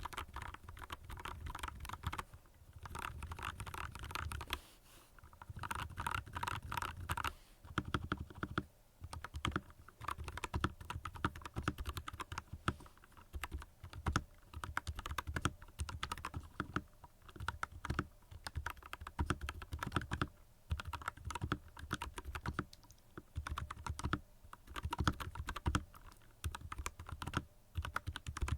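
Typing on a Royal Kludge RK61 mechanical keyboard with linear red switches oiled with Wahl blade oil, O-ringed keycaps and foam in the case tray. Fast runs of keystrokes come with a few short pauses.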